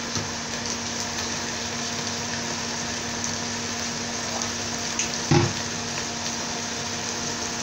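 Chopped onions sizzling steadily in hot oil in a cooking pot, with one dull knock about five seconds in.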